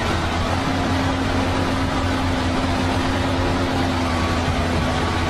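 Tracked excavator's diesel engine running steadily with a low hum, under the constant rush of fast-flowing floodwater around the machine.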